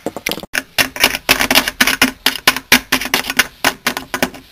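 Plastic toy figurines tapped and hopped by hand across a surface and up a set of toy stairs, a quick run of small clicking taps, several a second.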